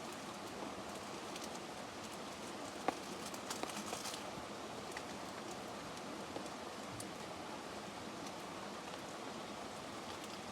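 Steady rain falling in a forest, an even patter with one sharp tick about three seconds in and a few small knocks just after.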